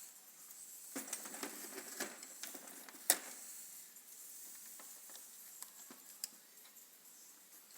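Faint handling noise: scattered light clicks, taps and rustling, busiest between about one and three seconds in, with one sharper click just after three seconds.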